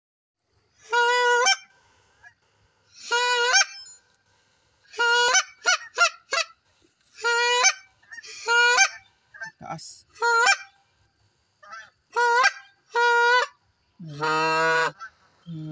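Canada goose honks, one every second or two, with a quick run of short clucks about six seconds in and a longer, lower honk near the end.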